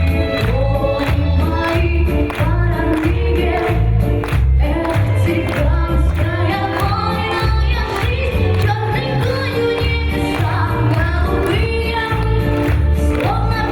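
Russian Gypsy (Romani) ensemble song: voices singing together over a band, with a heavy bass and a steady, driving beat.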